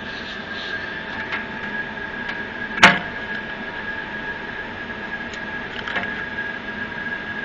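Lab test-bench machinery running with a steady whine over a hum. There is one sharp click about three seconds in, and a few fainter ticks.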